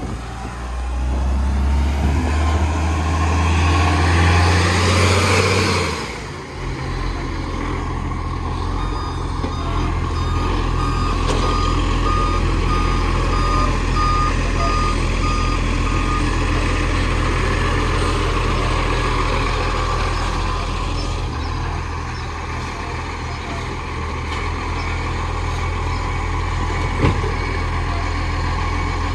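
Dennis garbage truck's engine revving hard, rising in pitch for the first few seconds, then running steadily. A reversing alarm beeps evenly for several seconds in the middle.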